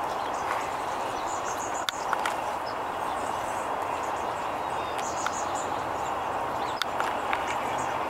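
Steady outdoor background hiss with a few faint, short, high bird chirps and a couple of small clicks.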